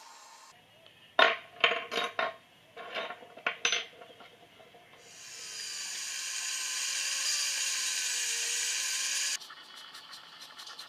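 A handful of sharp metallic clinks with a short ring. Then a handheld rotary tool with a sanding drum runs steadily for about four seconds, sanding a small metal katana fitting, and stops abruptly. Faint rapid clicking follows.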